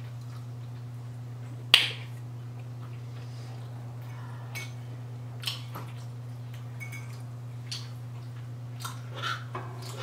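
Eating sounds at a meal table: chewing, with forks clicking against plates and a bowl, the sharpest clink about two seconds in. A steady low hum runs underneath.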